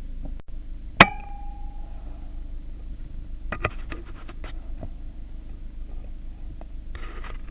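A single sharp shot from a Daystate Wolverine C Type .177 pre-charged air rifle about a second in, with a brief metallic ring after it. A series of smaller clicks follows a couple of seconds later.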